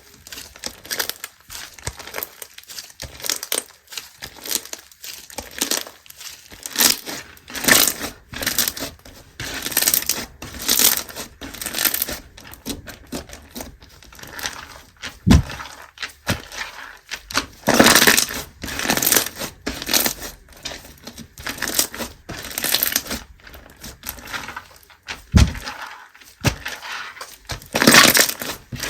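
Slime being squeezed, pressed and stretched by hand, giving an irregular run of short crackly, crinkling squishes about once a second, with two brief low thuds about halfway and near the end.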